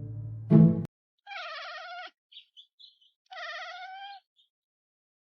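Music cuts off about a second in. Then a cat gives two drawn-out, wavering trill-like meows, with a few faint short chirps between them.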